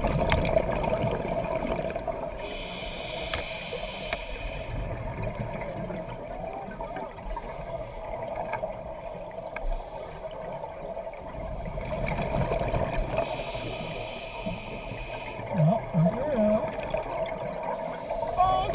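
Underwater sound picked up through a GoPro housing: a scuba diver's regulator breathing, with hissing rushes of exhaled bubbles a few seconds in and again about two-thirds of the way through, over a steady hum.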